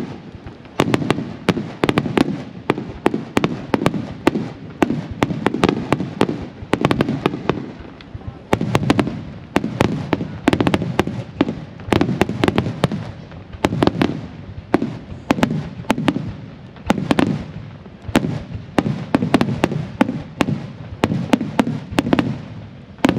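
Fireworks display: a dense, continuous barrage of aerial shells bursting, many sharp bangs a second over a booming low rumble that swells and fades in waves.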